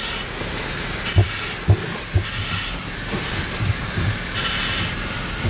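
Fire hose nozzle spraying water into a burning room: a steady, loud hiss, with a few dull knocks.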